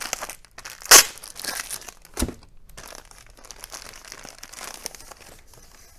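Clear plastic bag crinkling and rustling as it is unwrapped by hand, with a sharp loud crackle about a second in and another just after two seconds, then quieter rustling.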